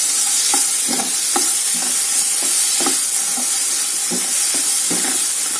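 Potato wedges sizzling in oil in a non-stick frying pan while a spatula stirs and tosses them. The spatula strokes scrape the pan about twice a second over a steady frying hiss.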